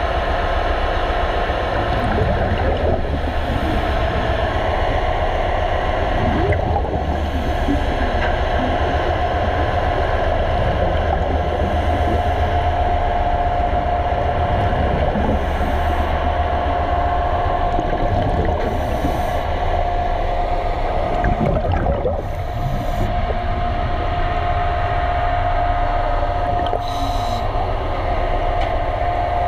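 Steady underwater machinery hum with a constant mid-pitched tone over a low rumble, broken by a brief rush of noise every three to five seconds.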